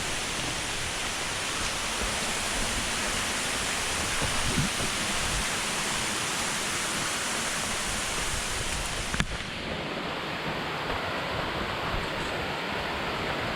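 Steady rushing noise. About nine seconds in, its highest hiss drops away abruptly.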